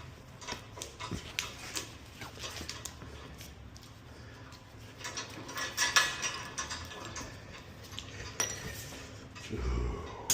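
Scattered metallic clinks and clicks of tools and car parts being handled, with a louder clatter about six seconds in and a low thump near the end.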